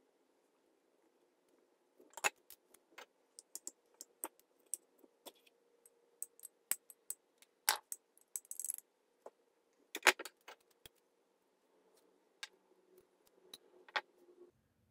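Irregular light metallic clicks and clinks of small contactor parts, such as contact plates, springs, washers and the nut, being taken off an Albright solenoid's brass rod in a bench vise and handled, with the sharpest clinks about two, eight and ten seconds in.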